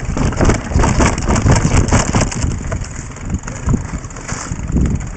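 Mountain bike riding over a rough dirt trail: rapid rattling and knocking as the bike and its camera mount jolt over bumps, with a low rumble of tyres on dirt and wind on the microphone.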